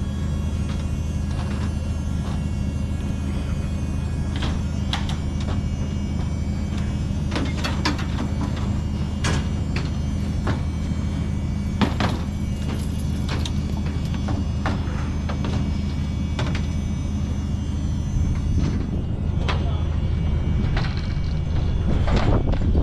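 A steady low machine hum with scattered knocks and clanks throughout; the sharpest knock comes about twelve seconds in.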